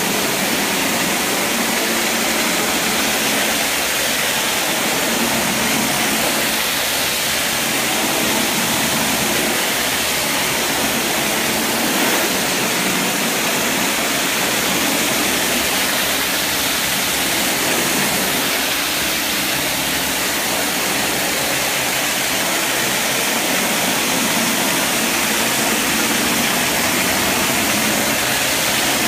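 Hard-surface spinner tool cleaning tile grout: a steady, loud rush of water jets spraying under the spinning head and vacuum suction pulling the dirty water back up the hose.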